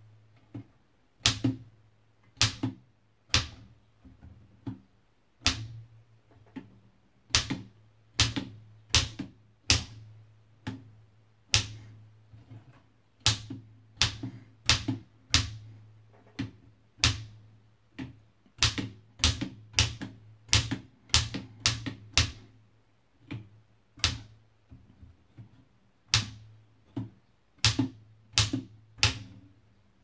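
1920s Oliver No.11 typewriter's mechanism clacking as it is worked by hand: irregular sharp metallic clacks, roughly one a second, some coming in quick pairs.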